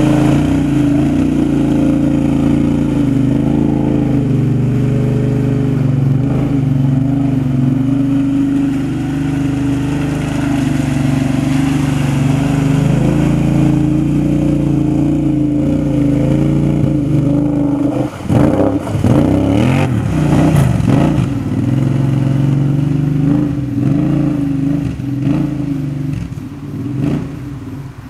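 2005 Kawasaki Brute Force 750's V-twin engine with a Muzzy aftermarket exhaust, running hard and steady as the lifted quad wades through deep mud on 30-inch Silverback tires. About 18 seconds in the engine starts revving up and down, then fades near the end as the quad pulls away.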